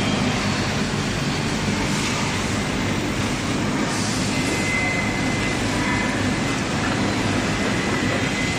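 CNC brake lining inner arc grinding machine running, grinding brake linings with a steady, even noise. A faint thin high whine joins in about halfway through.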